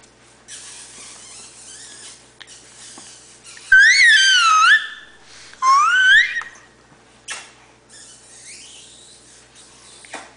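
A baby's two loud, high-pitched squeals, each wavering up and down in pitch, about four and six seconds in, with soft breathy noise between.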